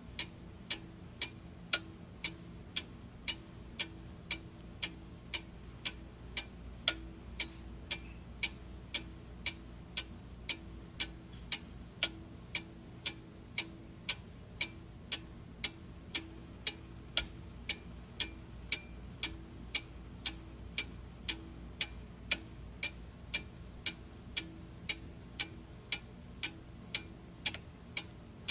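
A clock ticking steadily, sharp even ticks at about two a second.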